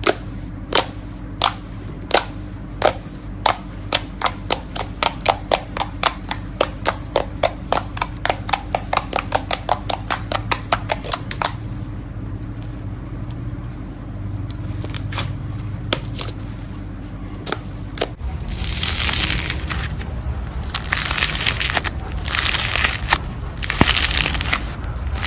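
Slime being played with. Sharp popping clicks come faster and faster for the first eleven seconds or so. After a lull with a low hum underneath, crackling, crunchy squishes come in bursts from about two-thirds of the way through.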